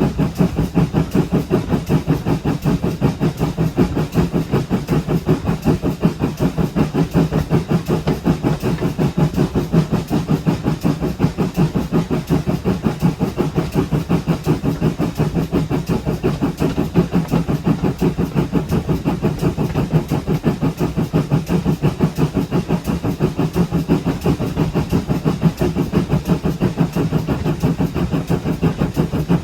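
Pannier tank steam locomotive 7714 running steadily on the move, with a rapid, even beat that goes on unbroken.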